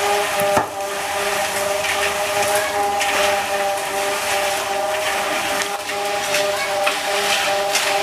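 A motor runs with a steady, unchanging hum. Short scraping and knocking sounds of work come and go over it.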